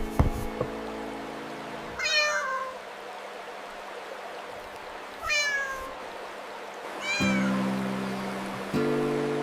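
A cat meowing three times, each meow falling in pitch, over soft background music with held chords.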